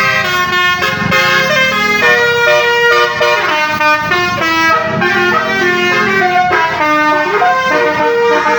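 Indonesian 'telolet' (basuri) multi-tone musical bus horn playing a tune of held notes that change pitch in steps.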